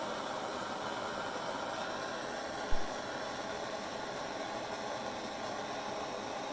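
Handheld gas torch hissing steadily as it heats a small melt of silver and copper for solder, with a single low thump a little under three seconds in.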